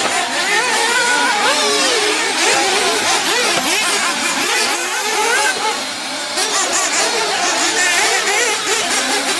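Several radio-controlled off-road racing buggies running together, their small engines revving up and down in overlapping, constantly shifting pitches.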